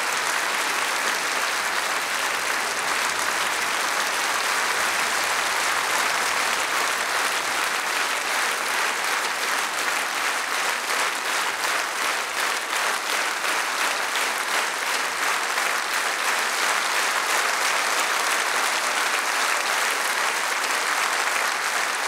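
A large concert-hall audience applauding steadily, a dense, even clapping that does not let up.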